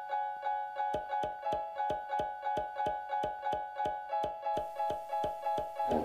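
Intro background music: a keyboard playing a quick repeating pattern of notes, about four a second, with a steady beat coming in about a second in.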